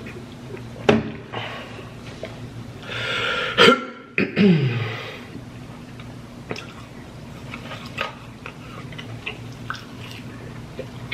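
Close-up mouth sounds of a man eating fast food: scattered chewing and lip smacks, with a loud rushing breath about three seconds in, then a short throat sound that falls in pitch.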